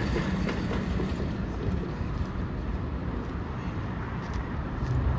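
Union Pacific freight train rolling slowly past: a steady rumble of rail cars on the track.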